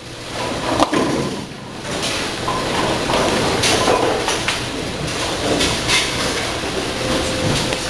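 Bowling alley din: a steady rumble of balls rolling down the lanes, with scattered knocks and clatters of pins and pinsetter machinery.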